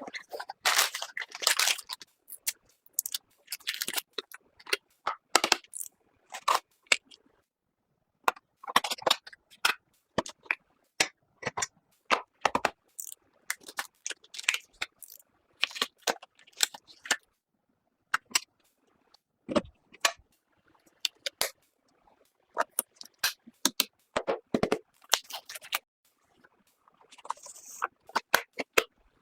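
Many short clicks, taps and scrapes of computer parts being handled and fitted together, in irregular clusters with brief silent gaps between them.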